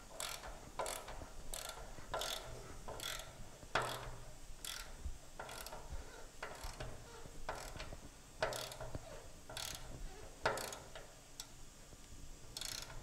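Hand ratchet wrench clicking in short strokes, about one swing a second, as a motor mount bolt is run down onto the chassis frame.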